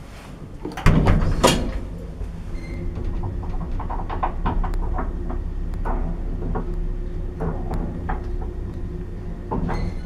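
Zremb passenger lift: a loud clunk about a second in, then a steady hum with scattered clicks and rattles as the car travels. Near the end the car's sliding doors open.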